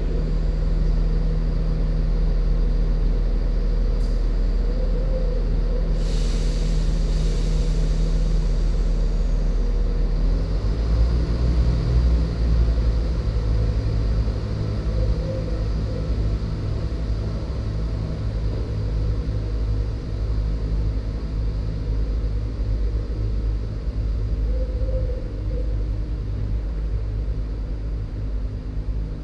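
Class 170 Turbostar diesel multiple unit's underfloor engines running, with a hiss of air about six seconds in. About ten seconds in the engines open up and the train pulls away, the sound easing as it draws off.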